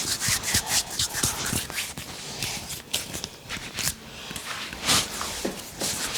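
Hands rubbing and kneading an oiled scalp and hair during a head massage: an irregular run of quick, short rustling strokes.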